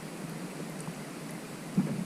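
Steady wind and water noise around a kayak, with a brief knock near the end.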